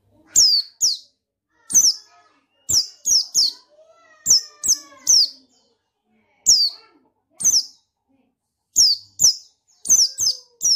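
A pleci (white-eye) calling: about sixteen short, sharp, high-pitched notes that each slide downward, given singly or in quick runs of two or three with irregular pauses between.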